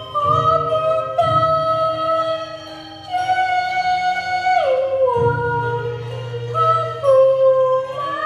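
Cantonese opera: a child sings in a high voice, holding long notes that slide in pitch, with a marked falling glide about halfway through, over instrumental accompaniment.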